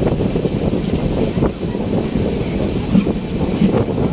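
Passenger train's coaches passing close by: a steady rumble of wheels on rails with a few faint clacks, and wind buffeting the microphone.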